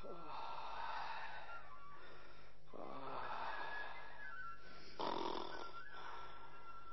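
A person snoring: three long snore breaths, about two and a half seconds apart.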